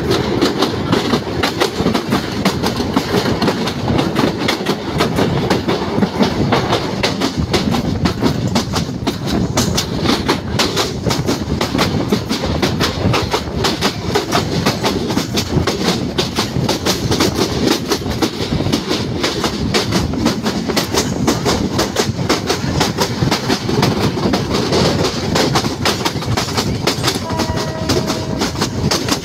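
Passenger train running at speed, its wheels clattering rapidly and steadily over the rail joints under a constant rumble. A brief steady tone sounds near the end.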